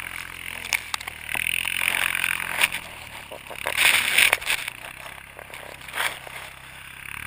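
ATV engine running with a steady low drone under a hiss of wind and snow, which swells about four seconds in, while the sled is towed through snow. Scattered knocks and bumps come through along the way.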